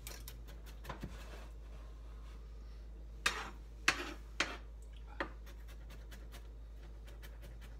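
Kitchen knife mincing ginger on a plastic cutting board: a couple of light taps about a second in, then four sharp knife strokes spread over two seconds in the middle, over a steady low hum.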